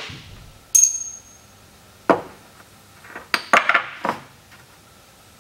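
Metal parts of a disassembled Rotax 912 ULS gearbox being set down on a wooden workbench. About a second in there is a clink with a short high ring, then a single knock, then a quick cluster of knocks and clinks around three to four seconds in.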